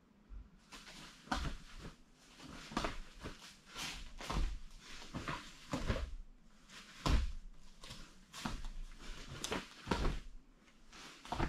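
Taekwondo poomsae movements: the cotton dobok snaps crisply with each punch and block, and bare feet thud and stamp on foam mats. The sharp snaps and thuds come irregularly, about two a second.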